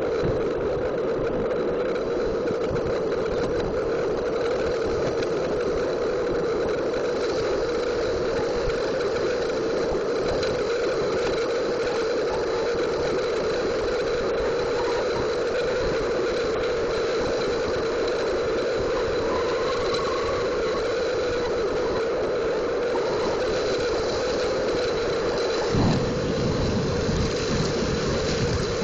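Homemade skateboard's wheels rolling down an asphalt road, a steady rolling noise, with a single thump about 26 seconds in.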